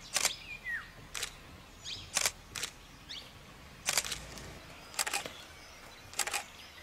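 A series of sharp clicks, roughly one a second, some coming in quick pairs, over a quiet outdoor background.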